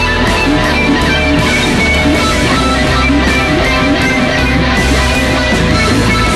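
Loud, dense psychedelic rock music with guitar playing throughout.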